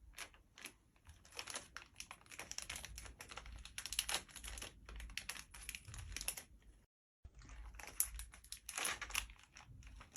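Close-miked ASMR crinkling of an M&M's packet and the candies clicking against each other: a dense run of small crackles and taps. The sound drops out completely for a moment about seven seconds in.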